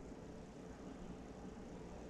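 Quiet room tone: a faint steady hum and hiss with no distinct event.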